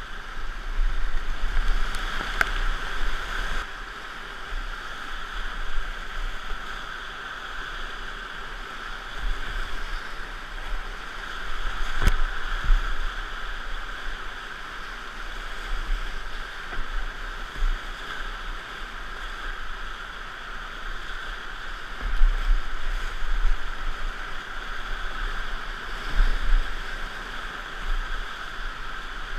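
Whitewater rapids rushing steadily past a kayak, the loudness surging and falling, with a few sharp knocks, the clearest about twelve seconds in.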